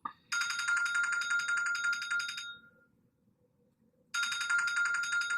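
Telephone ringtone: an electronic trilling ring sounding twice, each ring about two seconds long with a two-second gap between them.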